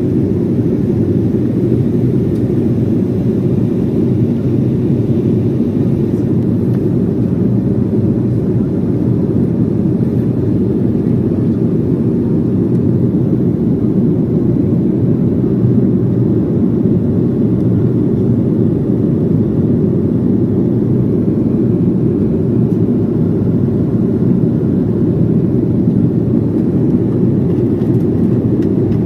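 Cabin noise of an Embraer 190 airliner in flight: a steady, even rumble of its engines and airflow heard from inside the cabin.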